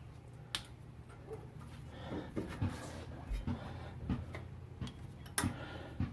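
Small metal clicks and knocks as new brake pad hardware clips are pressed into place on a caliper bracket: a sharp click about half a second in, several softer taps in the middle, and another sharp click near the end.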